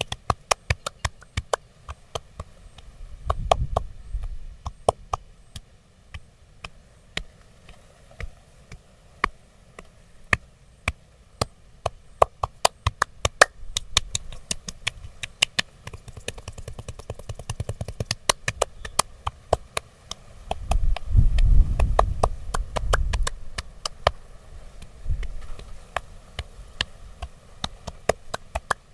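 Percussive massage on a person's body: a fast, irregular run of sharp taps and clicks, several a second, with two spells of heavier low thumping, one a few seconds in and a longer one about two-thirds of the way through.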